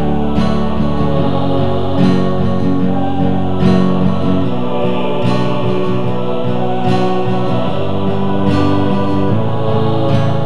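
MIDI-arranged pop song played on guitar and orchestral instruments with choir voices, sustained chords over a steady accent about every one and a half to two seconds.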